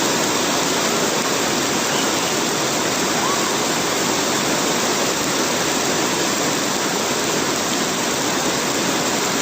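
Heavy rain pouring down, a steady, even hiss with no break.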